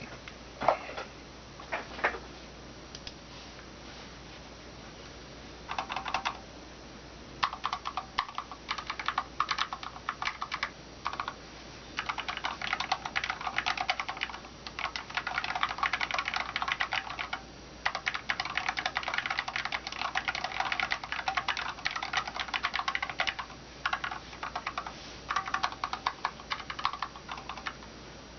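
Typing on a Cooler Master SK620 low-profile mechanical keyboard with Cherry low-profile red (linear) switches, stock and unlubricated: a few single key strokes, a pause, then bursts of fast typing with short breaks. The keys have a metallic ping that the owner finds severe.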